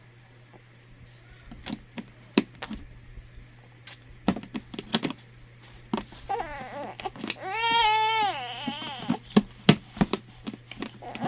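Sharp plastic clicks and knocks from the baby-bottle storage box being handled and fitted together. About six seconds in, a baby cries out twice in high, wavering wails, the second one longer.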